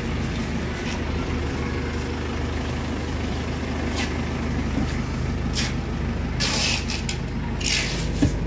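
A vehicle engine idling steadily, under several short rustles and scrapes from about four seconds in as plastic-wrapped wooden doors are pushed into place on the van's cargo bed.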